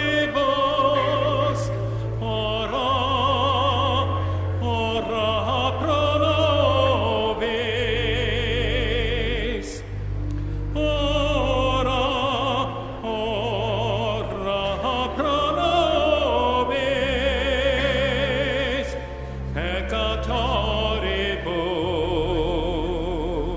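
A trained classical voice singing a slow sacred piece with a wide vibrato, over long held low bass notes that change every few seconds.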